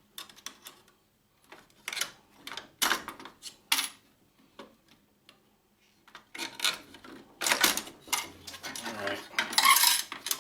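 Metal tool and parts clinking and clattering against a steel printer chassis as it is prised apart with a flat-head screwdriver: scattered sharp clicks at first, then a busier run of metallic clatter in the second half.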